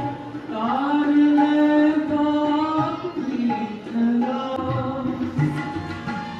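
Live Sikh kirtan: devotional hymn singing in long held notes, with tabla drumming, most clearly in the second half.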